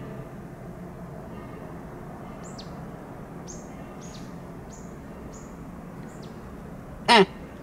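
Small songbird giving short high chirps, each falling in pitch, about two a second. Near the end a deer calls once: a short loud bark that falls steeply in pitch.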